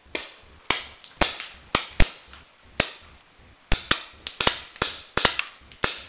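Paintball markers firing: an irregular string of sharp pops, about fifteen in all, with a short lull near the middle.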